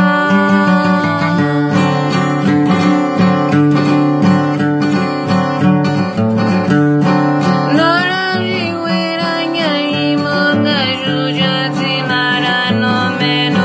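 Acoustic guitar playing chords, strummed in a steady rhythm from about two seconds in.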